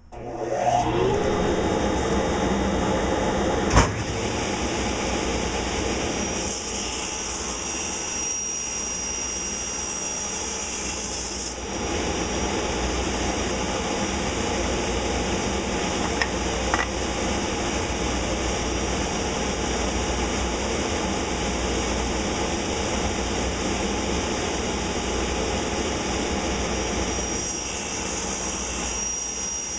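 Table saw starting up, its motor rising to speed in about a second, then running steadily while narrow strips of wood are cut, with a sharp knock about four seconds in.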